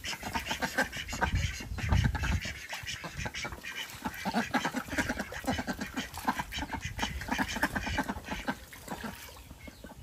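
A group of domestic ducks quacking while they splash and bathe in a small water-filled concrete tank.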